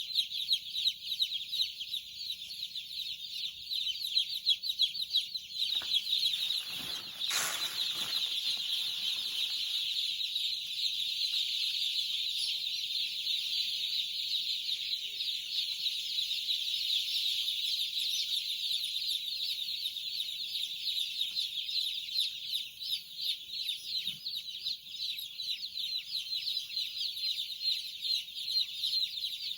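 A crowd of young chicks peeping continuously in a dense, high-pitched chorus. A brief rustling noise cuts in about six to seven seconds in.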